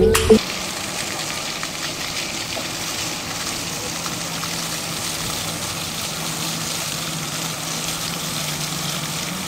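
Ground-level fountain jets spraying up from floor grates and splashing back onto paving tiles: a steady hiss of falling water, with a faint low hum joining about halfway through.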